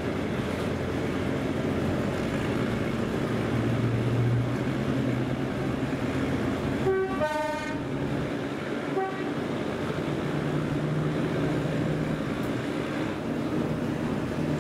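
Diesel shunting locomotive hauling a train, its engine and the running of the carriages heard steadily from a carriage window. About seven seconds in it sounds its horn for under a second, then gives a second, very short toot about two seconds later.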